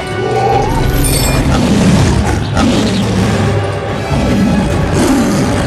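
Dramatic film score with a large beast's growling roars mixed in, and a heavy hit about two and a half seconds in.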